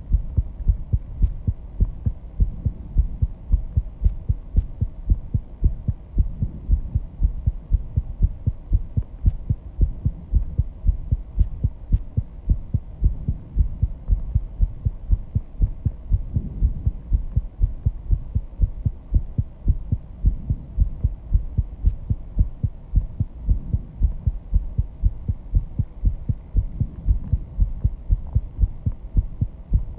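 A person's heartbeat picked up close through a microphone after intense exercise: a steady, regular run of low beats.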